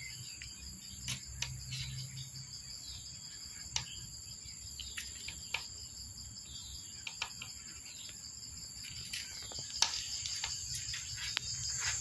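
Steady, high-pitched insect trilling, crickets or similar, with scattered short bird chirps and clicks over it.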